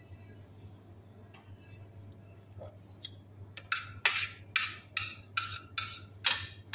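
A metal kitchen utensil scraping in about eight quick, sharp strokes, starting about halfway through, over a low steady hum.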